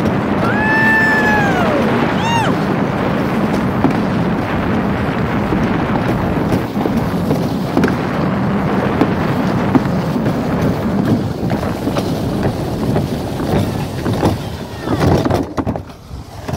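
Alpine slide sled running down the track: a steady rumble with wind on the microphone. About a second in, a voice gives a high whoop that rises and falls, with a shorter one just after. Near the end the sled slows, the rumble drops away and a few knocks come as it reaches the bottom platform.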